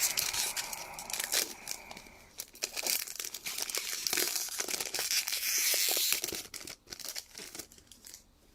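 A hockey card pack wrapper being torn open and crinkled in the hands: a crackling, rustling tear made of many small crackles, fading out near the end.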